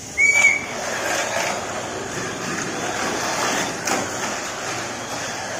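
A short electronic start beep, then several stock-class Mini 4WD cars running around a plastic multi-lane track: a steady whir of small motors with rattling and clicking as the cars run along the lane walls.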